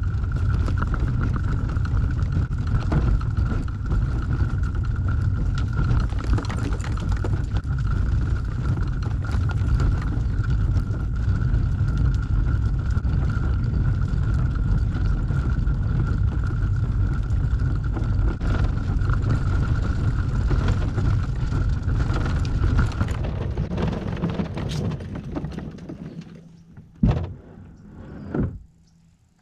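Jackson Coosa FD fishing kayak rolling on its cart over rough, cracked asphalt as it is pulled along: a steady heavy rumble with a steady high whine. Near the end the whine stops, the rumble fades out as the rolling ends, and two sharp knocks follow.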